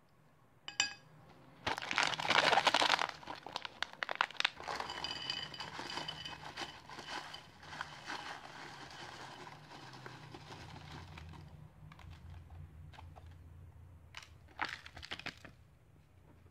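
A foil snack packet of honey-roasted peanuts is crinkled and torn open, with the loudest rip about two seconds in. The peanuts then pour and rattle out onto a plate amid packet crinkling for several seconds, followed by a few brief crinkles near the end.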